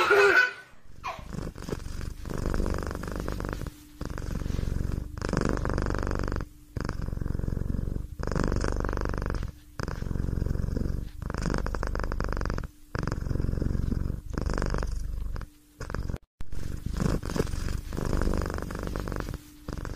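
Domestic cat purring, in rhythmic pulses roughly every second and a half with brief breaks between them.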